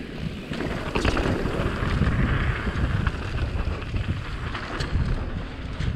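YT Capra Core 1 MX mountain bike descending a dirt trail at speed: wind rushing over the microphone with a low rumble of tyres on dirt. A few sharp clicks and rattles from the bike, about a second in and again near five seconds.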